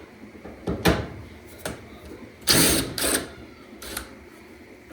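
Screws being taken out of a dryer's top panel with a screwdriver: a few sharp clicks and, about two and a half seconds in, a short mechanical rattle lasting about half a second.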